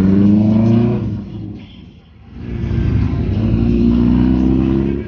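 Superbike engine accelerating hard, its pitch rising through the revs in two long pulls with a brief lull between them, then dropping off near the end.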